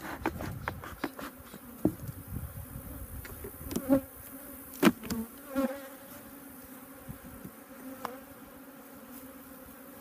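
Honeybees buzzing in a steady hum around an opened hive, disturbed as its boxes are shaken and moved. Several knocks of wooden hive boxes being handled cut through it, the loudest about five seconds in.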